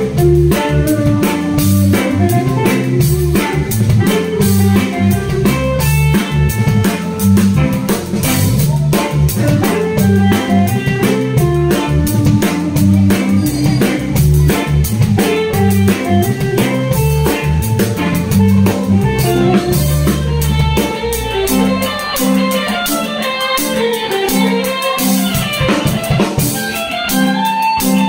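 Live band playing instrumental music on electric keyboard, electric bass guitar and drum kit with cymbals. The low bass notes stop about three-quarters of the way through, leaving keyboard and drums.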